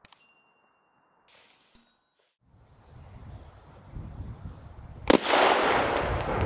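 A 30 mm glitter mine firing from its tube: one sharp bang about five seconds in, followed at once by a dense hiss and crackle of burning glitter stars. Before it there are two faint clicks with short beeps, and a low rumble of outdoor noise that builds from about two and a half seconds.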